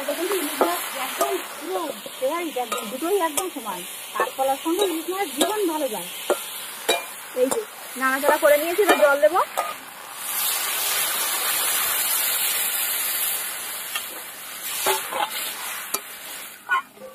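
A metal spatula stirs and scrapes fried potato and raw green banana pieces in an aluminium wok, giving repeated short squeals that rise and fall. About ten seconds in, water goes into the hot pan with a loud, steady sizzling hiss that fades over a few seconds.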